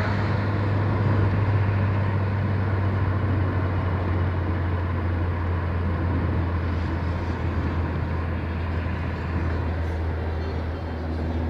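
Steady road and engine noise of a moving car heard from inside the cabin: a constant low drone under even tyre hiss.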